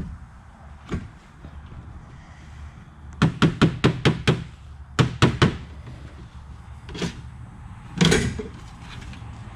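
Quick knocks and taps as a cut-open oil filter's element and canister are handled over a sheet-metal drain tray. There is a fast run of about six taps, then three more, a single knock, and a louder clatter near the end.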